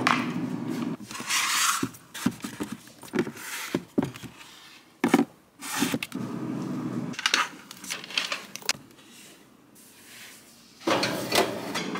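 Clothes, shoes and bags being picked up and handled on a countertop: rustling, with irregular clacks and knocks of hard items and quiet gaps between.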